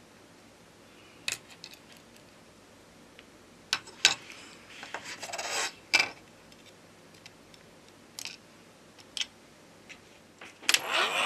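Metal tweezers clicking and scraping on a phone motherboard as the rear camera connectors are unclipped: scattered small clicks, with a brief scratching rub about four to six seconds in. Near the end a heat gun starts blowing, a steady rushing noise that grows louder.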